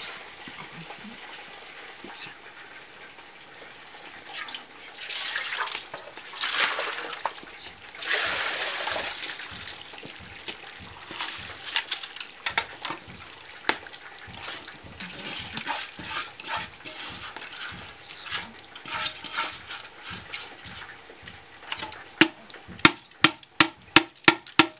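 Wet rice being rinsed and poured between aluminium bowls, with irregular bursts of splashing and trickling water. Near the end a pot is knocked against the rim of a metal bowl: a quick run of sharp, ringing metal strikes, two or three a second.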